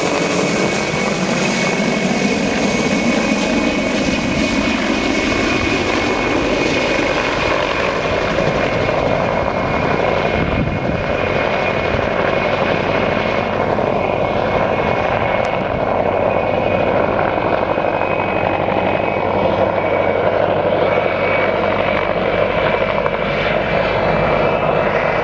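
Mil Mi-2 helicopter in flight, its twin turboshaft engines whining steadily over the rotor noise. The pitch drops in the first few seconds as it passes overhead, and after that the sound grows duller as it moves off.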